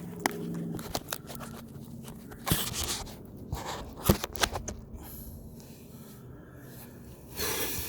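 Scattered clicks and knocks of hands handling objects, the loudest about two and a half and four seconds in, with a short rustling hiss near the end.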